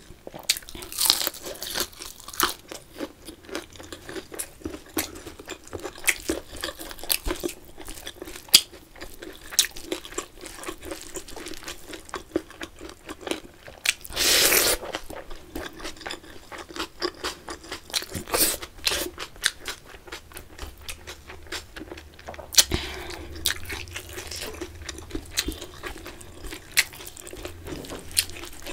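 Close-up mouth sounds of someone chewing and crunching fried chicken and rice: many small wet clicks and crunches, with a louder stretch of noise about halfway through.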